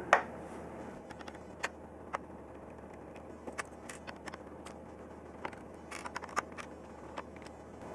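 Light metallic clicks and scrapes, irregular and spaced out, as the metal mounting crossbars of a CPU cooler are handled and turned around by hand.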